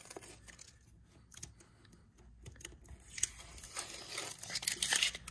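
Blue masking tape being peeled off a boat's transom and crumpled in the hand: a crackling rustle, with a few small clicks early on, that grows louder over the last two seconds.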